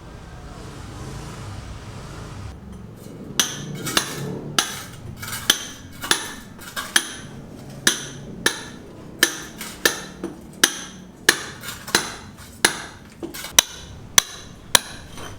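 A low steady rumble for the first few seconds, then a hammer striking repeatedly, about one and a half blows a second, each blow ringing briefly.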